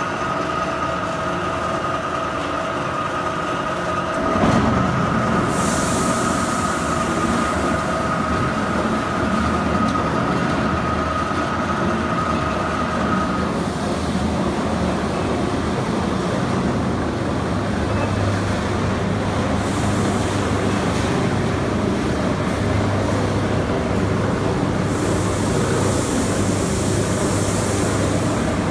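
Machinery of a fertilizer bulk-blending line running: a steady mechanical rumble with a high whine. A louder low rumble joins about four seconds in, the whine stops about halfway through, and there are a few stretches of hiss.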